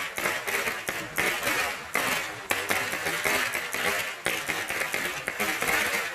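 A long string of red firecrackers going off in a rapid, continuous crackle of bangs that stops abruptly near the end.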